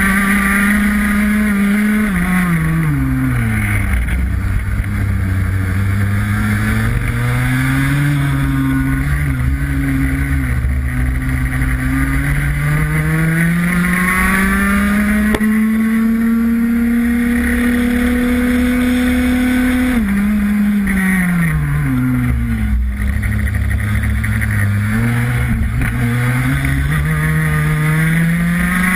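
Onboard sound of a racing kart's two-stroke engine at full throttle, revs climbing steadily along the straights and dropping sharply under braking into corners, with the biggest drops about three seconds in and again about twenty seconds in.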